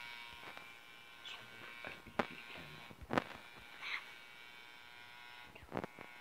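Homemade metal detector's speaker giving a faint, steady buzzing tone. A few short knocks come about two, three and six seconds in.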